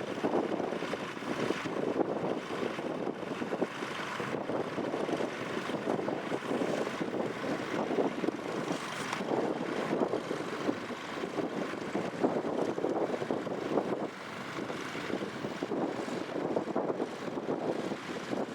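Tractor engine running steadily while ploughing, a rough, even engine sound with no clear changes.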